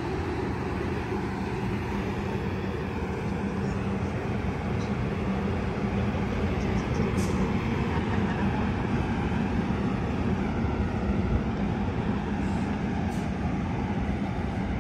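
Amtrak Capitol Corridor bilevel passenger train standing at the platform with its equipment running: a steady low rumble with a held hum, a little louder in the middle.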